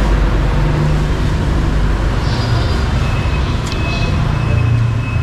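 Steady road-traffic noise, with low vehicle engines droning and swelling as they pass. A thin, steady high tone comes in about three seconds in, and there is a single sharp click near four seconds.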